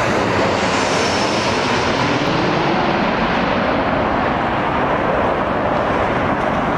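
Southwest Boeing 737-700 jetliner on landing approach passing low overhead, its CFM56 turbofan engines giving a steady, loud jet roar. The higher hiss fades within the first couple of seconds as the plane moves away.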